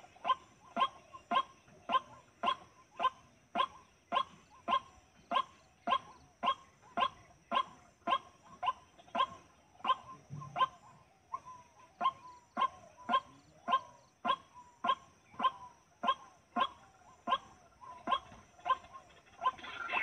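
White-breasted waterhen (dahuk) calling: one short, sharp, falling note repeated steadily about twice a second.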